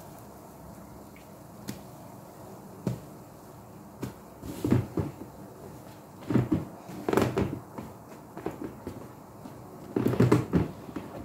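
Soaked foam sponges squeezed and pressed by hand in a tub of sudsy laundry-liquid water: a run of wet squelches and sloshes starting about four seconds in, the loudest cluster near the end.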